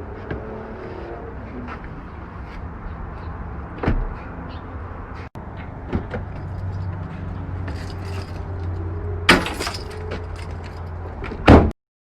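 A car's steady low engine and road rumble, broken by a few sharp knocks and door-like clunks, the loudest about nine seconds in and just before the end.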